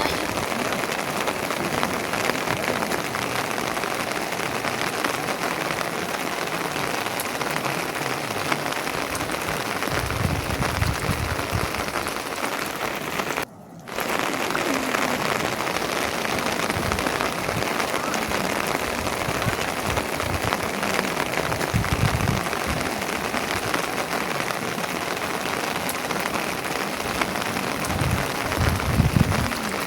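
Steady, dense rain falling, with a brief dropout about halfway through.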